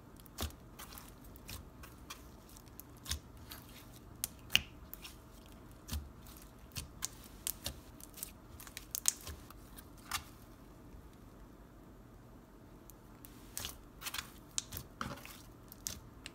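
Clear glitter slime being pressed flat and stretched by hand, giving irregular sharp clicks and pops, with a lull partway through.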